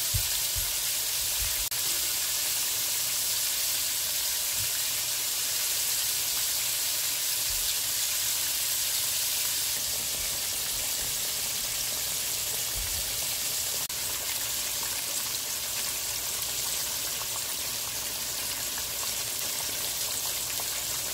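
Flour-coated chicken leg quarters deep-frying in hot oil: a steady sizzling hiss.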